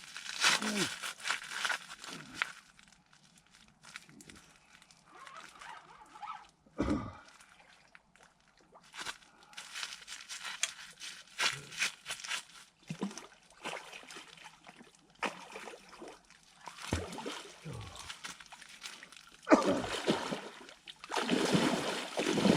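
Irregular splashing and sloshing of water, with a few short low thumps.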